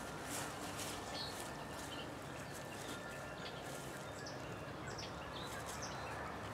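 Quiet outdoor background with backyard chickens clucking faintly now and then.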